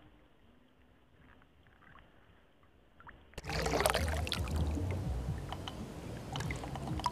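Water lapping and sloshing against the bank, with a low rumble and scattered small clicks. It is faint at first, then jumps much louder about three and a half seconds in.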